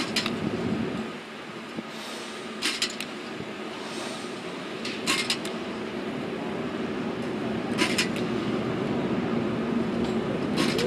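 Footballs fired from a Jugs machine smacking into a receiver's gloved hands: five sharp catches, evenly spaced about every two and a half seconds. A steady mechanical hum runs underneath.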